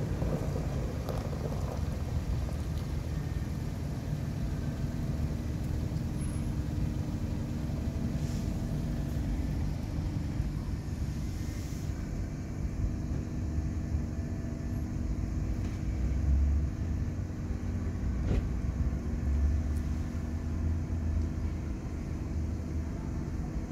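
Steady low rumble of road traffic, with a couple of louder low swells about two-thirds of the way through.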